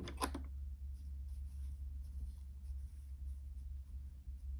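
Faint light rustling and small ticks of wire-wrapped jewellery pieces being handled and set side by side, over a steady low hum.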